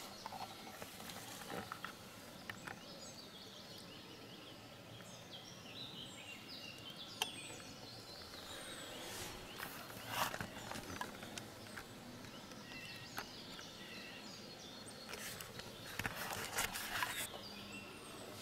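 Faint small birds chirping and singing in the background, with close rustling and knocks from handling in a wooden hide about halfway through and again near the end.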